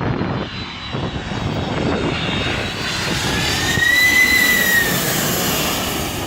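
Jet airliner passing low overhead: a steady engine roar with a high whine that rises in pitch, is loudest about four seconds in, then falls as the plane passes.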